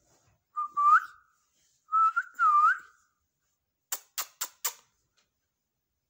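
Two short runs of whistled notes, each dipping and then hooking upward in pitch. Then four quick sharp taps about a quarter-second apart, which fit the ringneck parakeet's beak pecking at the phone's case.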